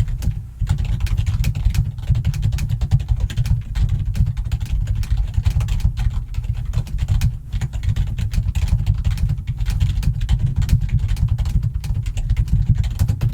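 Rapid, continuous typing on a computer keyboard, loud, with a deep thump to the key strikes.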